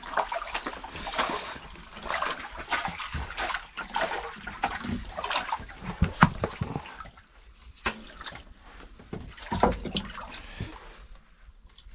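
Water splashing and dripping with irregular knocks and slaps as a burbot is hauled out of an ice-fishing hole, busy at first and thinning out after about seven seconds.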